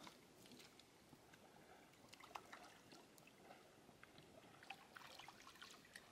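Near silence: faint outdoor ambience with scattered small clicks and ticks.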